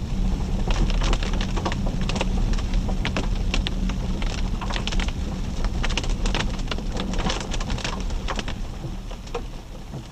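Rain hitting a Jeep Grand Cherokee WK2, many sharp irregular taps over the steady low rumble of the vehicle running, easing off a little near the end.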